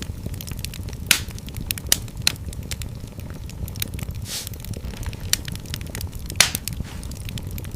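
Wood fire in a fireplace crackling, with irregular sharp pops and snaps over a steady low rumble of the flames; the loudest pops come about a second in and again about six seconds in.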